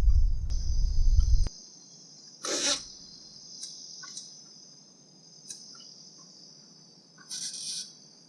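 Crickets chirping steadily in a high, continuous band, under a loud low rumble that stops about a second and a half in. Two brief noises cut across it, one about two and a half seconds in and a longer one near the end.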